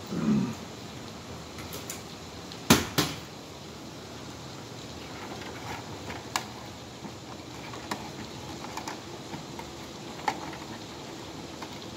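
Hands handling a plastic fire-alarm horn strobe housing: two sharp plastic clicks close together about three seconds in, then a few lighter clicks and knocks, over a steady background hiss.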